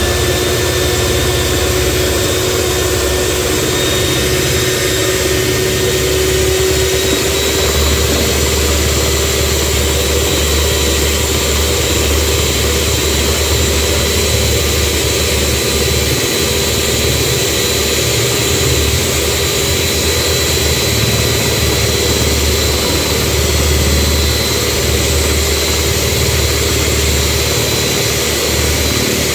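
Electric hand mixer running steadily, its motor whining as the beaters whisk eggs in a plastic bowl.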